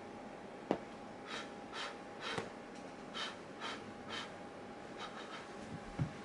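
A hand gently patting a cat's rump at the base of its tail: soft, brushing pats about twice a second. Two short, low thumps stand out, one under a second in and one near the end.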